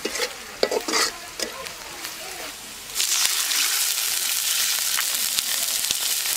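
Sliced onions frying in oil in an iron wok, with scattered crackles and clicks. About three seconds in, water hits the hot oil and sets off a loud, steady sizzle.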